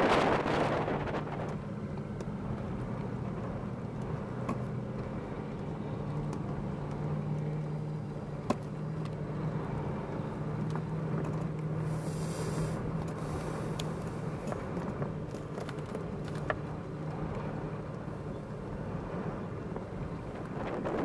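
Land Rover engines running steadily at low revs, a low hum. A sharp click comes about eight seconds in, and a short hiss about twelve seconds in.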